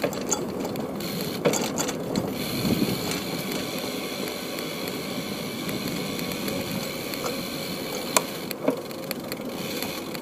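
Bicycle rolling over stone paving tiles, with a steady rumbling rattle from the tyres and frame and a few sharper knocks as it crosses the joints.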